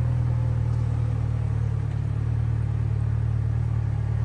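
A steady low mechanical hum, like a motor running nearby, holding an even pitch throughout.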